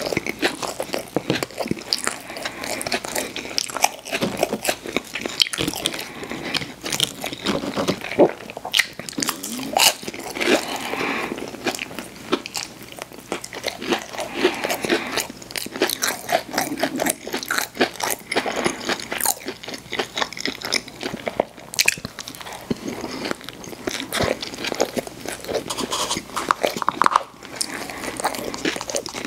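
Close-miked crunching and chewing of fast food, a dense, unbroken run of crisp bites and chews.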